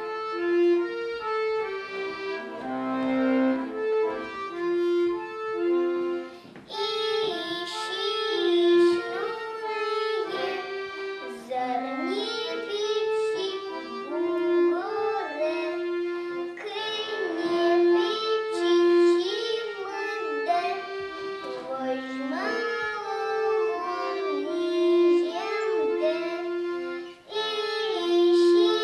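A child singing a gentle lullaby over instrumental accompaniment; the voice comes in several seconds after the music starts.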